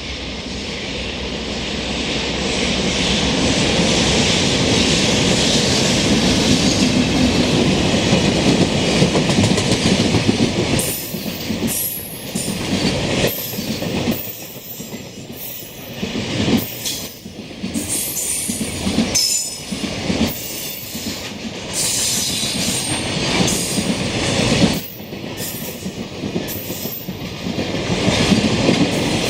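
EH200 electric locomotive passing with a container freight train: a steady rushing noise builds over the first few seconds, then from about eleven seconds in the container wagons roll by with wheels clattering over rail joints in an uneven clickety-clack.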